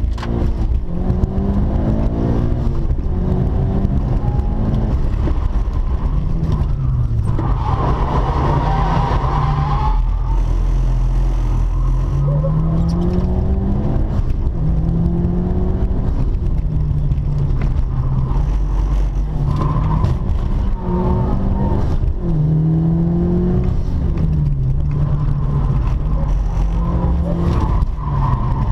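Mitsubishi Lancer Evolution V's turbocharged four-cylinder engine heard from inside the cabin, revving up and dropping back repeatedly through gear changes while the car is driven hard. The tyres squeal for a couple of seconds about eight seconds in.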